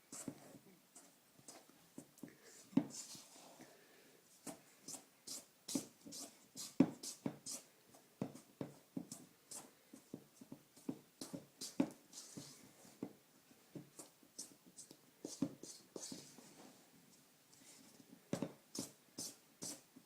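Thick sugar cookie dough being stirred by hand in a mixing bowl, flour being worked into the creamed butter, sugar and eggs. Irregular knocks and scrapes against the bowl, about one or two a second.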